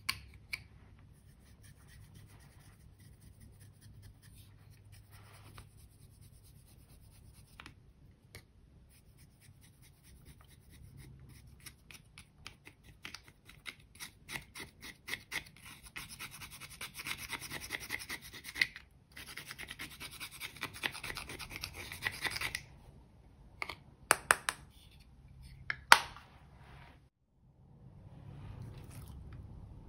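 Eyeshadow being scraped out of its compact with a tool, the powder crumbling: a rapid scratching that builds up about a third of the way in and grows dense before stopping abruptly. A few sharp clicks follow near the end.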